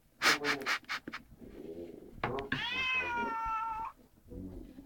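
Domestic cat: a few short harsh noisy bursts about a second long, then one long, slightly falling meow.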